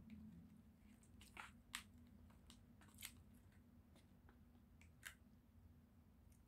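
A handful of faint, sharp clicks of wooden chopsticks tapping against a plastic sushi tray and each other while picking the shrimp off a nigiri. They sit over a steady low hum.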